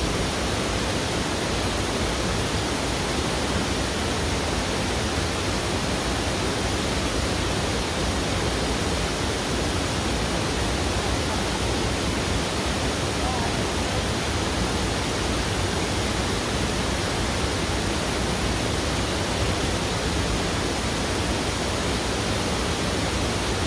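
Steady rushing of a fast river current: an even hiss that does not change.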